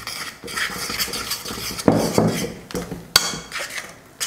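A spoon scraping and clinking against a stainless steel kadai while rice flour is mixed into just-boiled water to form a dough. Irregular stirring strokes, with a dull knock about two seconds in and a sharp clink about a second later.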